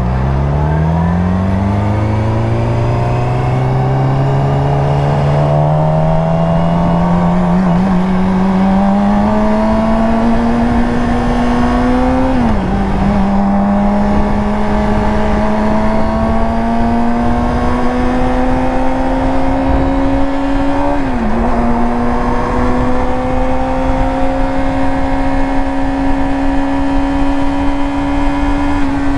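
Yamaha R6 inline-four sport bike engine pulling from low revs and climbing slowly in pitch, with two brief dips in revs as it shifts up, about twelve seconds in and again about twenty-one seconds in.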